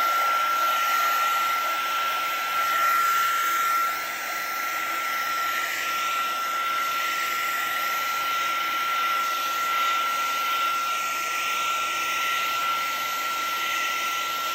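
Wagner HT400 electric heat gun running steadily, its fan blowing with a constant high whine. It is warming a fresh epoxy resin top coat so the resin flows and levels out finger smear marks.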